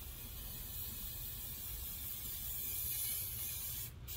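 Aerosol can of spray adhesive hissing in a steady stream as contact glue is sprayed onto headliner fabric, with a brief break about four seconds in.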